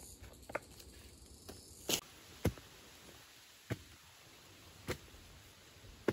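A long-handled digging tool striking down into clay soil as a pit is dug: a run of short, sharp thuds, one every second or so.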